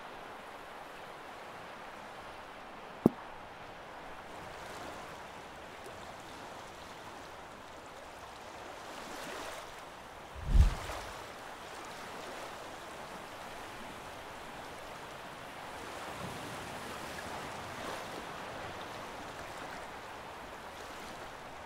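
Soft, steady wash of sea water, with a sharp tick about three seconds in and a short low thump about ten seconds in.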